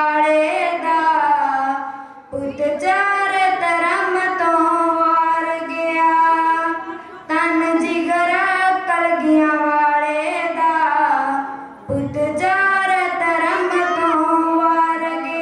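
A girl's voice singing a Punjabi verse, solo and without instruments, in long melodic phrases with held notes and brief pauses for breath about 2, 7 and 12 seconds in.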